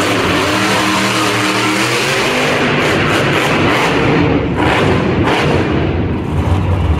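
Grave Digger monster truck's engine revving hard as the truck spins donuts on the dirt arena floor.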